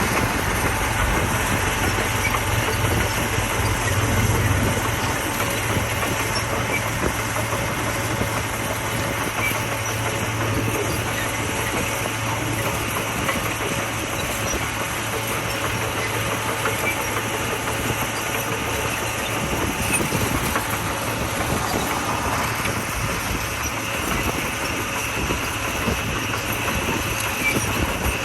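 Komatsu D41P crawler bulldozer working: its diesel engine runs steadily under a continuous clatter of steel tracks.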